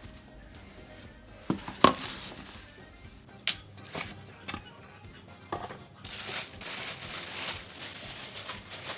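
Unpacking noises: several sharp knocks and clicks of the cooker and its parts being handled, then a rustle of packaging from about six seconds in, over faint background music.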